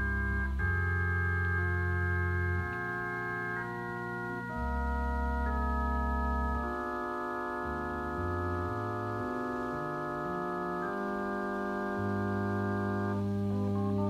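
Hammond organ playing unaccompanied, holding sustained chords that change every second or two, then breaking into a fast climbing run of notes near the end. It is the solo organ introduction to a hard-rock song, heard off a cassette recording of an FM broadcast.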